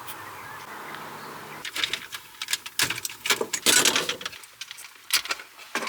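Irregular clicks, knocks and rustles of a compact subwoofer enclosure being handled and shifted into place behind a car seat, starting about a second and a half in.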